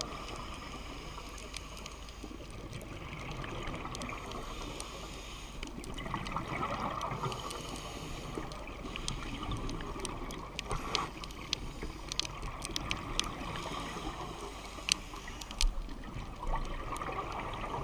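Underwater bubbling and gurgling of a scuba diver's exhaled air from the regulator, heard through an underwater camera housing: a steady hiss with a few louder swells of bubbles every several seconds.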